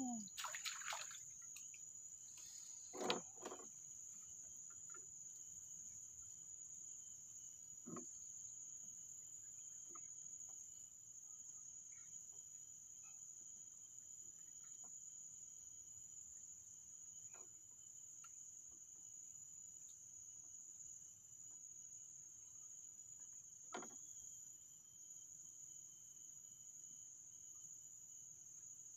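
Steady high-pitched drone of an insect chorus, broken by a few soft knocks, the loudest about three seconds in.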